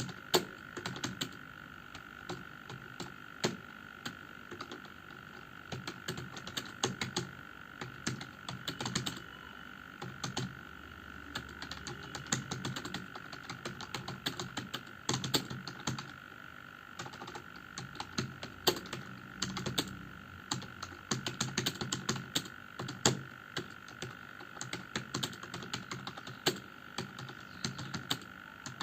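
Typing on a computer keyboard: runs of quick keystroke clicks with short pauses between them. A faint steady high tone runs underneath.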